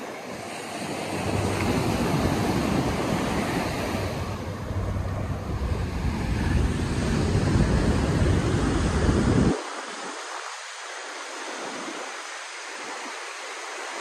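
Wind buffeting the microphone in a rough rumble that cuts off suddenly about nine and a half seconds in, leaving a steady rushing hiss.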